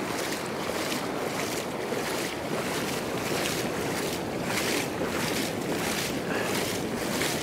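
Surf breaking and washing up a sandy beach, a steady rushing noise with short repeated hissing surges, mixed with wind on the microphone.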